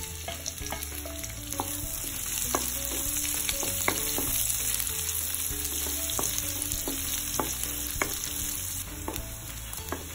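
Sliced onions sizzling in hot ghee in a kadai, stirred with a wooden spatula that scrapes and clicks against the pan. The sizzle eases a little near the end.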